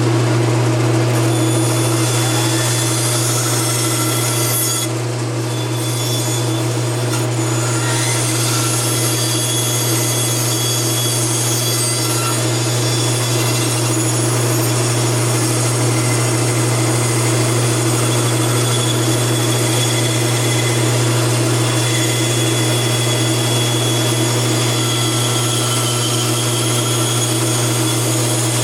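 Bandsaw running steadily with a constant motor hum while it cuts and shapes a wooden box blank with the table set flat.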